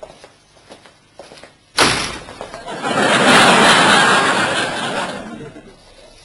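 Sitcom laugh track: a burst of audience laughter comes in suddenly about two seconds in, swells, and dies away by about six seconds, with a few faint knocks before it.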